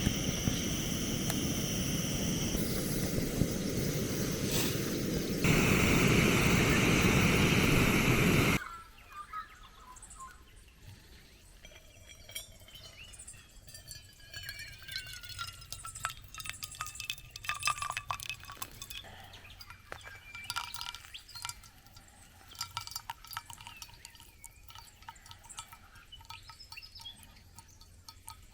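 Liquid pouring loudly for about eight seconds, louder in the last few seconds, then cutting off suddenly. After that, quieter birdsong with scattered small clicks and clinks.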